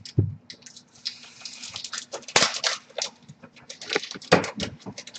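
Trading-card boxes and packs being handled: irregular crinkling and rustling broken by sharp snaps and knocks, loudest about two and a half and four seconds in.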